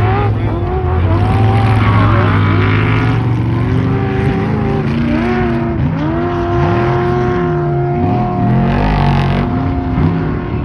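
Several racing truck engines running at once, their pitches rising and falling as they rev up and back off, with one engine note held steady from about six seconds in until near the end.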